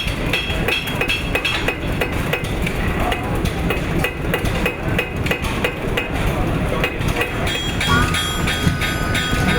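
Blacksmith's hammer striking hot iron on an anvil in a steady rhythm, about three blows a second, each with a short metallic ring. Near the end a steady high tone comes in over it.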